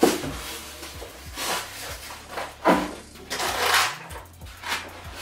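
Styrofoam packaging being handled and set down on a table: a bump at the start, then several short scraping and rubbing sounds of foam pieces.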